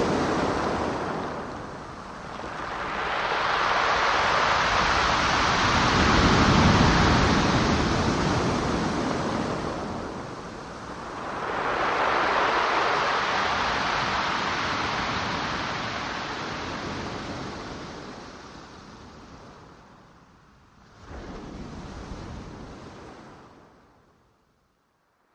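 Ocean surf: waves breaking and washing in, in long swells about every nine seconds, the last one short before the sound fades out near the end.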